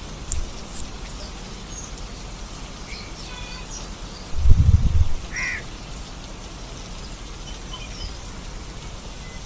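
Steady rain falling, with a few short bird calls in the background. About halfway through comes a brief low rumble, the loudest sound here.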